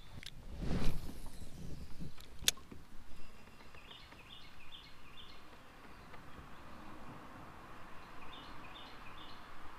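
A light spinning rod cast with a swish about a second in, followed by a sharp click. Later a songbird sings a quick run of short repeated notes, twice.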